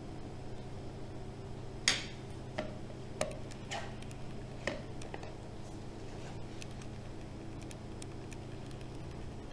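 A hard plastic container being handled: five sharp clicks and taps between about two and five seconds in, the first the loudest, over a steady low hum.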